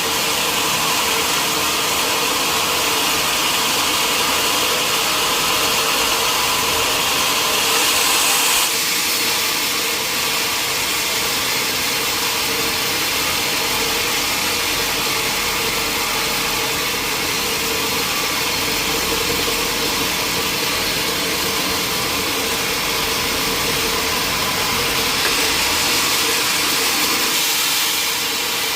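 Sawmill machinery running steadily with a constant hum, getting brighter and hissier for a couple of seconds around the eighth second and again near the end.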